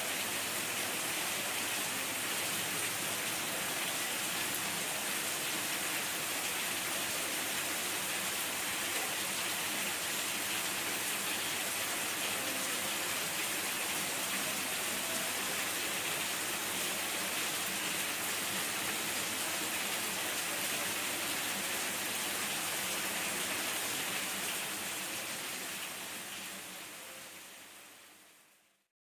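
Heavy rain pouring down steadily, an even hiss of falling water that fades out near the end.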